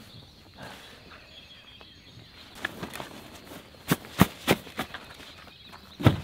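A run of sharp knocks and clunks, four or five in quick succession about four seconds in and one more near the end, as camp gear is handled and packed up.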